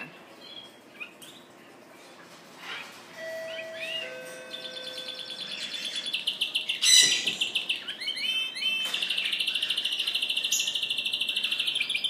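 A male Spanish Timbrado canary singing. A few scattered chirps come first, then from about four seconds in a fast, ringing trill of rapidly repeated high notes. The trill grows louder and settles into a steady rapid run near the end.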